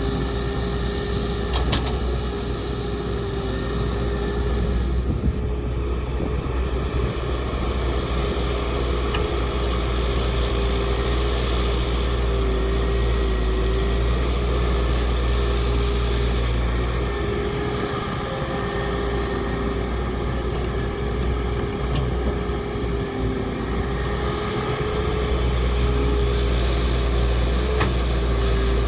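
Diesel engine of heavy earthmoving machinery running steadily: a low rumble with a steady droning tone over it, dipping and swelling slightly with the load.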